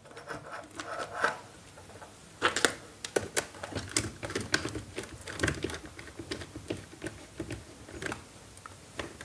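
Screwdriver turning the terminal screw of a plastic-bodied single-pole MCB to clamp a wire: a run of small, irregular clicks and scrapes, starting about two and a half seconds in.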